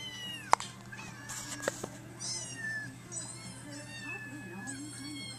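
Cats meowing: several short, high meows one after another, some falling in pitch, over a steady low hum. Two sharp clicks in the first two seconds, the first the loudest sound.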